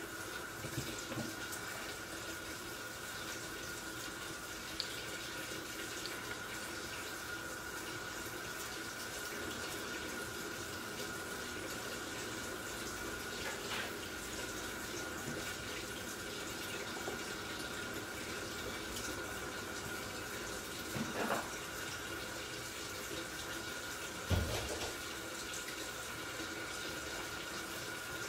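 Kitchen tap running steadily while carrots are washed under it, with two short knocks in the last third.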